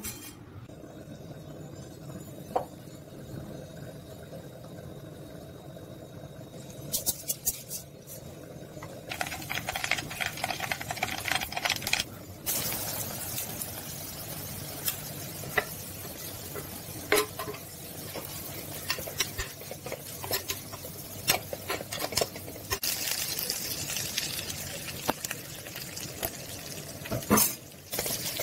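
Dried meat frying in hot oil in a pan: a sizzle that starts about a third of the way in, with the clicks and scrapes of a spatula stirring the pan.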